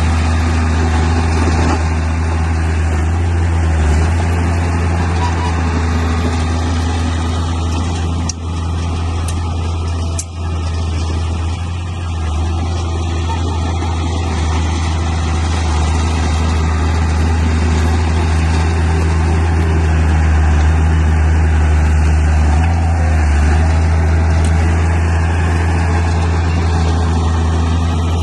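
Diesel engine of a Komatsu D31P bulldozer running steadily with a deep, even hum, with two brief drops in level about eight and ten seconds in.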